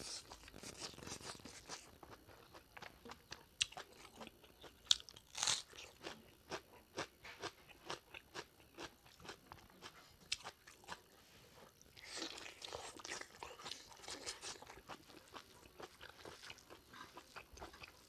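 A person chewing and biting into mouthfuls of pork leg curry close to the microphone: a quick run of short crunching and chewing sounds, with a denser stretch of crunching about twelve seconds in.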